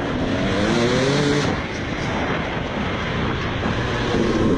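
Motocross bike engine revving, rising in pitch for about a second near the start, over a steady rushing noise.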